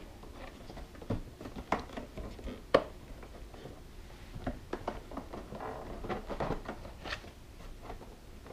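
Black fabric liner being peeled back from the plastic inner panel of a motorcycle trunk lid: soft rustling with irregular small clicks and ticks, the sharpest a little under three seconds in.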